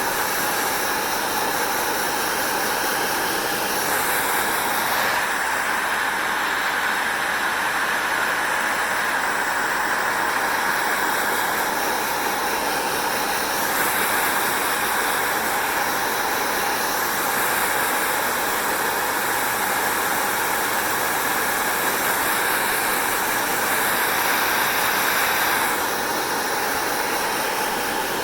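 Hair dryer running steadily, a constant airflow rush with its motor's whine; the sound shifts slightly a few times as the airflow changes.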